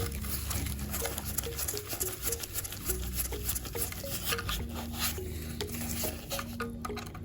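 Light clicks, taps and scraping from hand work on a small model car, over background music with a short note repeating in a steady pattern and a low bass.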